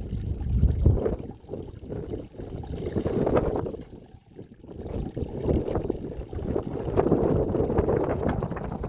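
Wind buffeting the microphone in gusts: a low rumbling rush that swells and dies away, with a near lull about halfway through.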